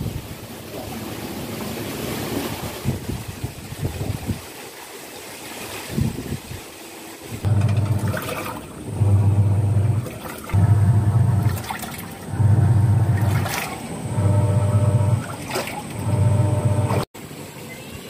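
Wind gusting over the microphone for the first several seconds. Then a Haier top-loading washing machine agitating a load in water, its motor humming in six pulses of about a second and a half with short pauses between them.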